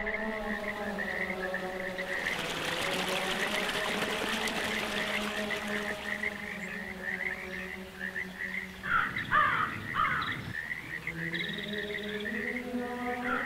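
Frog chorus of rapid, repeated chirps over a steady droning chord. A rushing hiss swells in about two seconds in and fades out by about six, and a few louder falling calls come around nine to ten seconds.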